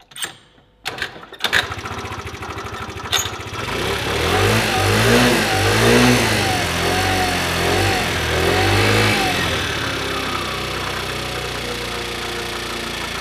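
A scooter that has been reluctant to start is kick-started. A few sharp knocks come first, then the engine catches about a second and a half in. It is revved up and down several times and settles to a steady idle near the end.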